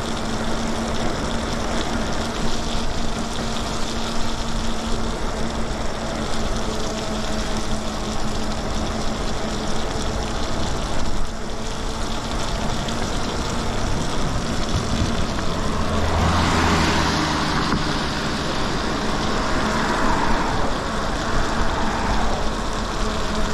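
Riding an e-bike on a wet road: steady wind and tyre noise with a faint constant hum. A vehicle passes about sixteen seconds in, swelling loud with a low rumble, and a smaller pass follows soon after.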